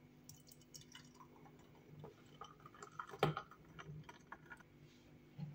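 Thick blended apple and pear juice poured from a jug into a glass tumbler: faint, irregular splashing into the glass, with one sharp click a little over three seconds in.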